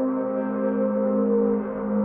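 Ambient background music of slow, sustained droning notes with a resonant, gong-like tone.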